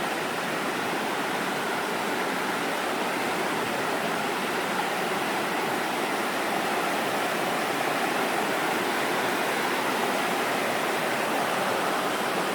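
The Virgin River flowing, a steady rush of water with no break.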